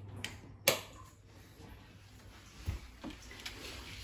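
A couple of sharp clicks or knocks in the first second, then faint room noise with a low hum and two light taps about three seconds in.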